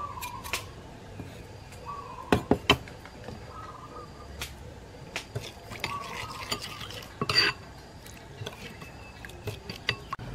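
A metal spoon stirring thin chili sauce in a ceramic bowl, clinking and tapping against the bowl's side at irregular moments. The louder clinks come a couple of seconds in and again past the middle.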